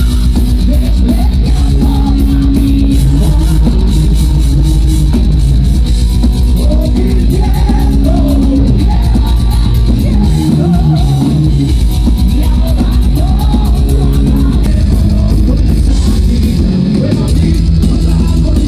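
Heavy metal band playing live and loud, with a drum kit, a heavy low end and a lead vocal singing a melody over it.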